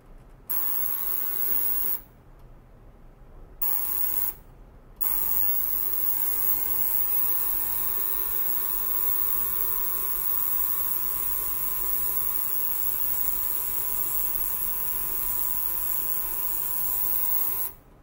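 Tabletop ultrasonic cleaner running: a steady buzzing hiss with a hum underneath. It switches on about half a second in, cuts out twice in short bursts, then runs steadily from about five seconds and stops just before the end.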